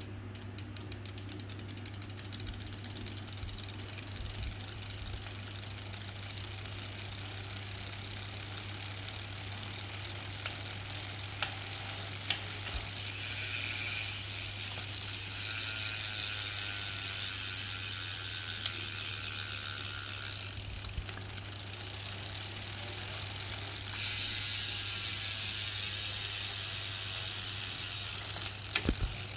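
Brompton 6-speed folding bike drivetrain clicking rapidly and continuously while pedalled, growing louder and sharper for two stretches of several seconds. It is a clicking when pedalling that the owner was told is normal.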